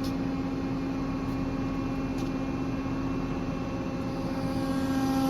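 Hydraulic pump and motor of a 50-ton Wabash/Carver press running in slow pressing as it builds tonnage on solder test pieces, a steady hum with one strong tone. About four and a half seconds in it gets a little louder and higher tones join in as the pressure climbs.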